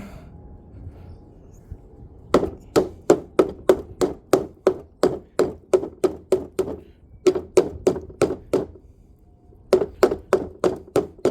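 Hammer tapping an oil seal down into its housing: a steady run of sharp knocks, about three a second, each with a short metallic ring, then a brief pause and a few more blows near the end.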